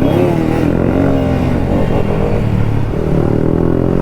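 Pulsar RS200 single-cylinder engine running while riding, its note rising and falling a little with the throttle.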